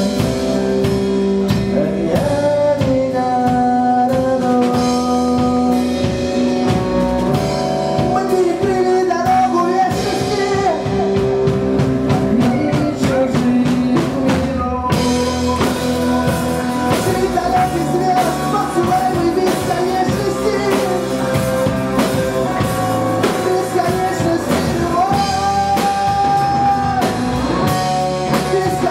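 Live rock band playing an instrumental passage: electric guitar, bass guitar and a Pearl drum kit, with a sustained lead line that bends in pitch over the rhythm.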